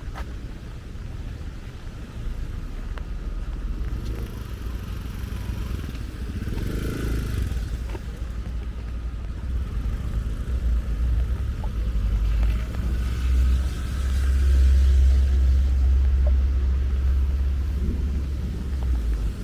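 Heavy rain on a city street with a deep, low rumble that builds and is loudest in the second half, amid a thunderstorm.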